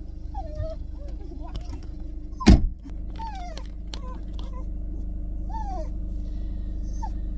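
A dog whining in a car cabin, a string of short falling whimpers over the steady hum of the idling car. One sharp knock about two and a half seconds in.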